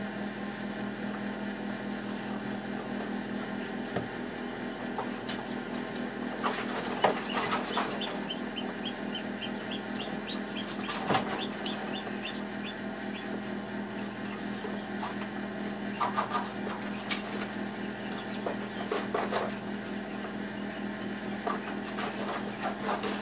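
Newly hatching chick peeping, a run of quick high cheeps about a third of the way in, with a few short rustling scrapes as it moves in the shell, over the steady hum of the incubator.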